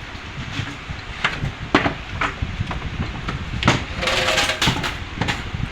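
A series of short sharp clicks and knocks over a steady low rumble, with a louder, rougher burst that has a pitched edge about four seconds in.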